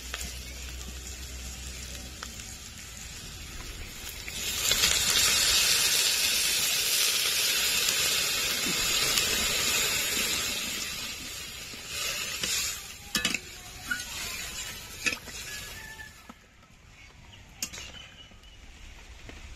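Spiced potatoes and pointed gourd sizzling in a hot metal kadai, then water poured in with a loud, steady hissing rush that lasts about six seconds. Afterwards a metal spatula knocks against the pan a few times as the curry is stirred.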